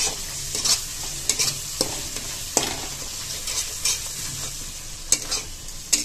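Spice masala sizzling in hot oil in a steel kadhai while a flat metal spatula stirs it, scraping the pan about once a second in uneven strokes.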